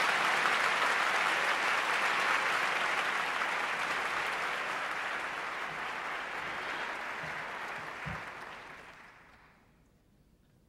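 Audience applauding, the applause slowly dying away and ending about nine or ten seconds in. A soft low thump comes shortly before it stops.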